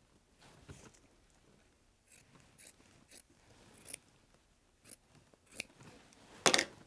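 Scissors snipping through wool fabric as excess wool is trimmed off a quilt border. A run of short, separate cuts starts about two seconds in and comes roughly every half second to a second, the loudest one near the end.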